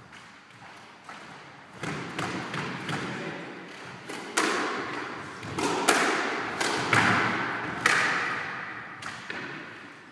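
Squash rally: the rubber ball struck by rackets and smacking the court walls in a quick run of sharp hits, each echoing off the walls, the hits coming harder in the second half.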